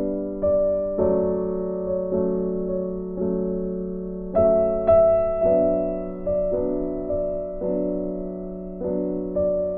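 Background piano music: slow, gentle chords struck about once a second and left to ring and fade.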